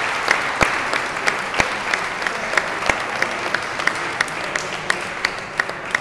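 Audience applauding, a dense patter of hand claps with a few close, sharp claps standing out at about three a second; the applause slowly thins near the end.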